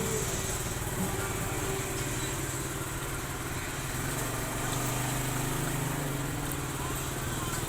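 An engine running steadily at a low drone.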